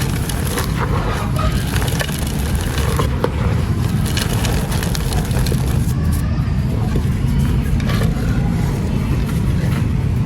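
Dry, gritty sand-cement being crushed and crumbled, a continuous crunching crackle of many small grains and fragments over a deep, steady rumble.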